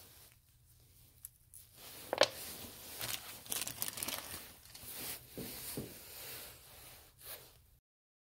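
Small clear plastic parts bag and paper rustling and crinkling as small parts are handled, with a sharp snap about two seconds in; the sound stops abruptly near the end.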